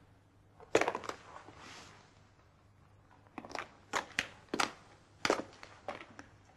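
A loud sharp click about a second in, followed by a short faint hiss, then a string of sharp irregular clicks and taps.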